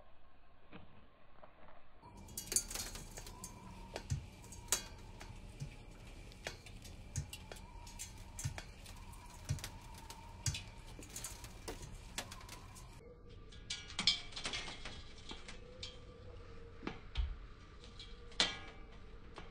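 High-heeled shoes clicking and clanking on the metal rungs of a ladder, one step roughly every second, over a faint steady hum.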